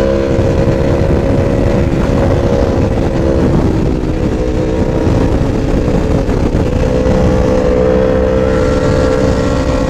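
Sport motorcycle engine running at high, steady revs while riding at highway speed, with heavy wind rush on the helmet camera's microphone. The engine note fades somewhat around the middle, then comes back.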